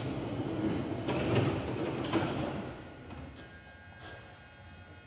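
Hankyu 7300-series electric train standing at the platform as its doors close, with a rumbling, clattering noise that fades after about three seconds. Two faint short high tones follow.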